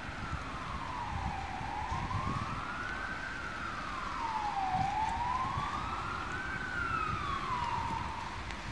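Police siren in a slow wail, its pitch rising and falling about every three and a half seconds, over traffic rumble and wind noise on the microphone; it fades away near the end.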